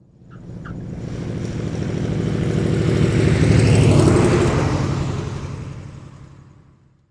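Propeller-driven aircraft engine passing by with a buzzing drone. It swells from nothing to a peak about four seconds in, then fades away.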